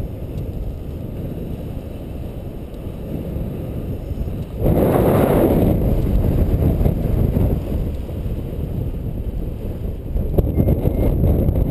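Airflow of a paraglider in flight buffeting the camera microphone: a steady low wind rush that gusts louder about five seconds in.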